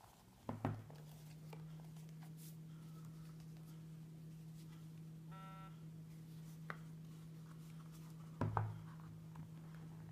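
Handling of a leather phone wallet case with the phone inside on a wooden tabletop: two soft knocks, about half a second in and again near the end, with a few light taps between. A steady low hum runs underneath.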